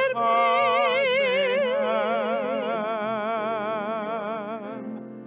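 A woman and a man, two cantors, singing a Hebrew prayer song together, holding one long note with wide vibrato that fades away near the end.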